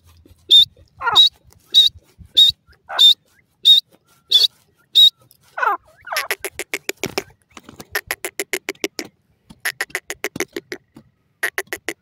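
Grey francolin calling: a run of sharp, high notes about every 0.6 s with a few lower sliding notes among them, then from about six seconds a fast stuttering chatter in repeated bursts.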